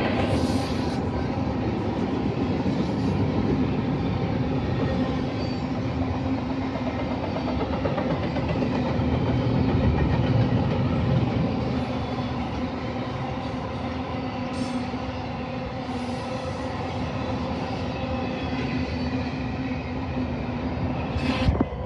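Long intermodal freight train of double-stack container cars and trailer-carrying flatcars rolling past, a steady rumble and rattle of steel wheels on rail with a steady low hum. A brief sharp bump near the end.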